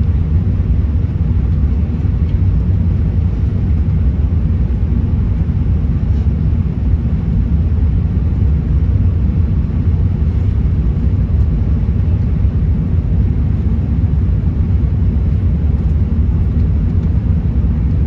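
Steady low rumble inside the cabin of a British Airways Airbus A380 climbing after takeoff: engine and airflow noise from its Rolls-Royce Trent 900 turbofans, heavy in the bass and even in level.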